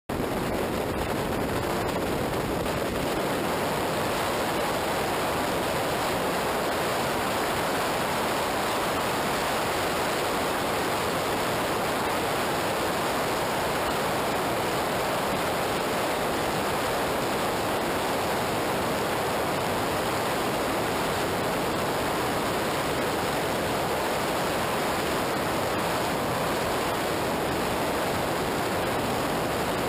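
Steady rushing wind and road noise on an action camera mounted outside a vehicle travelling at highway speed on a wet road.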